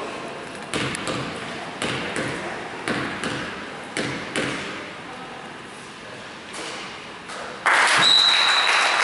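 A basketball bounced on a hardwood gym floor about once a second before a free throw. Near the end a crowd starts cheering and clapping, and a steady whistle blast sounds just after.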